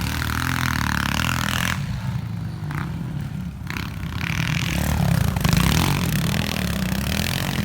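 Pit bikes' small single-cylinder four-stroke engines running and revving up and down, loudest about five to six seconds in.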